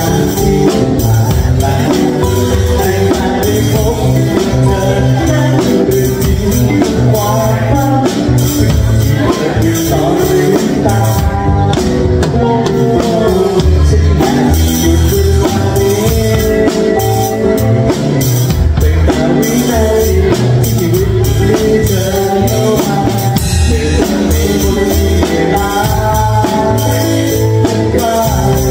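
A Yamaha drum kit played with sticks, with snare, toms and cymbals, in a band with an acoustic guitar.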